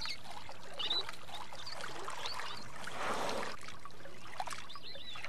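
River water lapping and trickling, with a slight swell of splashing about halfway through and a few faint, high, short chirps.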